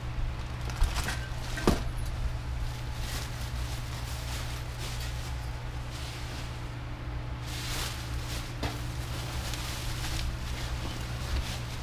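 ATV suspension parts being handled and unpacked: two sharp knocks about a second or two in, then several brief rustling swishes near the middle, over a steady low hum.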